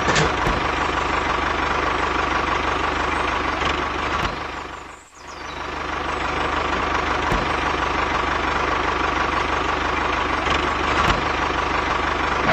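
Tractor engine running steadily with a fast low chug. It fades down and comes back up about five seconds in.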